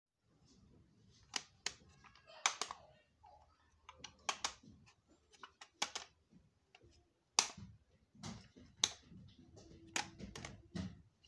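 Plastic audio cassette cases clicking and clattering as they are picked up, swapped and set down one after another on a hard floor: irregular sharp clicks, a dozen or so, some in quick pairs.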